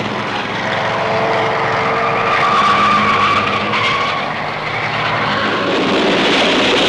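Stock car engines running hard in a race, with a drawn-out tyre squeal in the middle, over a steady low hum from an old film soundtrack.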